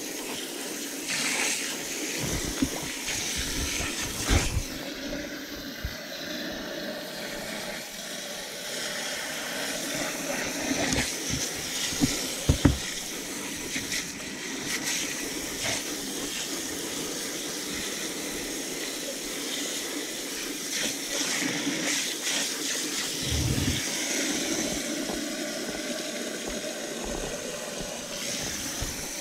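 Water running and splashing steadily into a plastic cooler as a soft-shelled turtle is rinsed in it, with a few knocks against the cooler, the loudest about twelve seconds in.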